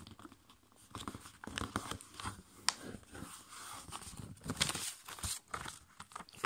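Sheet of A5 copy paper being folded and creased by hand: scattered crinkles and rustles, with one sharp crackle near three seconds in and a burst of crinkling around five seconds in.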